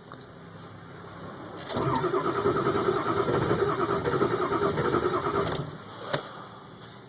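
Starter cranking the 7.3 L Powerstroke V8 turbodiesel of a 2002 Ford F350 in a cold start, pulsing steadily for about four seconds without the engine catching, then stopping; a short click follows a moment later. The truck starts hard when cold, and the owner wonders about the battery or the glow plugs.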